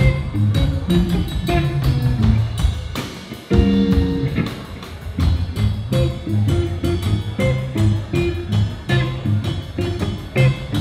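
Live band playing an instrumental passage: electric guitars over a drum kit. About three and a half seconds in the playing briefly drops away, then comes back with a held guitar chord before the groove picks up again.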